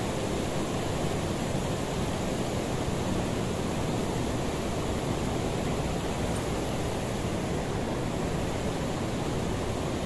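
Steady rushing noise of running water, even and unbroken, with no distinct events standing out.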